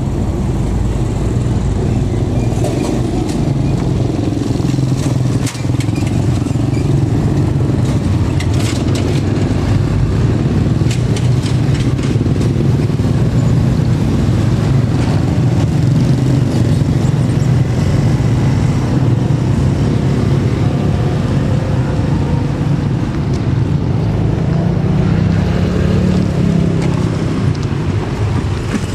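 Road traffic, mostly motorcycles and cars passing by, a steady low rumble of engines and tyres.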